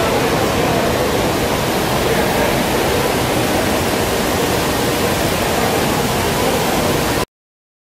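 Water falling from a tall indoor column fountain into its basin, a steady splashing rush. It cuts off suddenly near the end.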